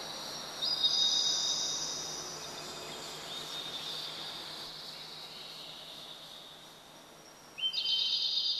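High, steady insect-like chirring, as of crickets, in a quiet passage of a recorded track. A new layer of it comes in sharply about a second in and again near the end, and it fades away in between.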